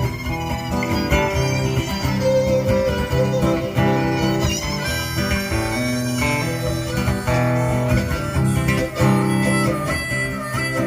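Instrumental music played live, a plucked string instrument and a bowed string melody over a steady low held note.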